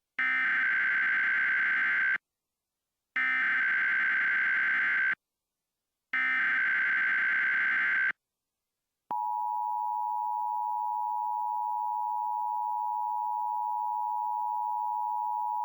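Mock Emergency Alert System broadcast tones. Three SAME data-header bursts of about two seconds each sound a second apart. Then the steady two-tone EAS attention signal begins about nine seconds in and holds.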